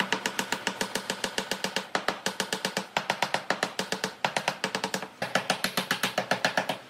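Steel claw hammer tapping on a tabletop of log slices: quick runs of sharp, ringing strikes, about five or six a second, broken by short pauses.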